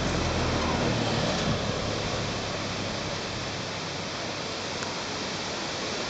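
Steady rush of a waterfall's falling water, an even noise without pattern. A low hum underneath fades out within the first second or two.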